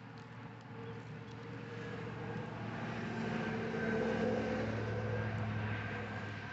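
A motor vehicle passing by: its engine hum swells to a peak about four seconds in, then fades away.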